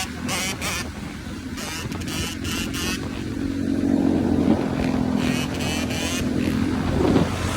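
Motorcycle engine running, its pitch rising and falling through the middle as the throttle is worked.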